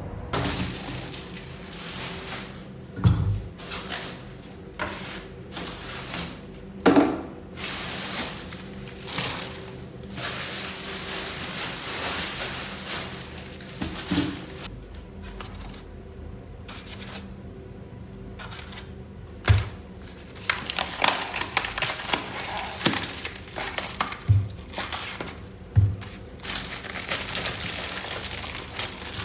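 Objects being handled at close range: a steady run of clicks, knocks and rustling, with a few louder thunks and a quicker patter of clicks in the last third, over a faint steady hum.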